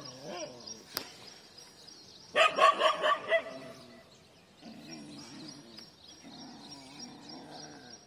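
A dog barking: a quick run of about half a dozen short barks about two and a half seconds in, followed by fainter, lower sounds.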